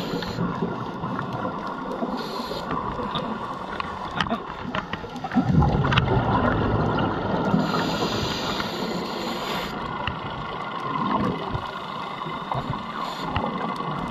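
Scuba diver breathing through a regulator underwater: hissing inhalations every few seconds, and a burst of exhaled bubbles about five to seven seconds in.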